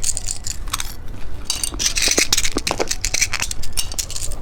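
Close-miked irregular crackling and crunching as candy and its packaging are handled.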